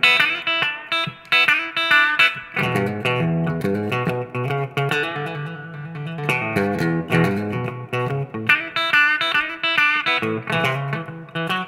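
Epiphone Les Paul Standard Pro electric guitar on its bridge humbucker, played through a Marshall MG30FX combo amp on its clean channel: a phrase of picked notes and chords, thinning out for a moment in the middle before building up again.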